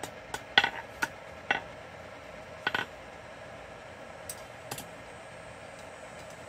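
Hand hammer striking hot quarter-inch steel bar on an anvil while drawing out a rat-tail taper: about five sharp, ringing blows at an irregular pace, the loudest about half a second in, with a few lighter taps. A steady low hum runs beneath.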